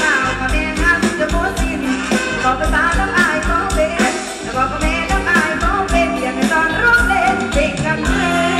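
A song with a woman singing over a band and a steady drum beat.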